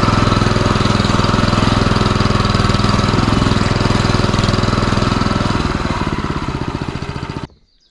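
MTZ-09N walk-behind tractor's single-cylinder petrol engine running as it drives along, with a fast, even exhaust beat. About six seconds in the beat slows as the engine eases off, and the sound stops abruptly just before the end.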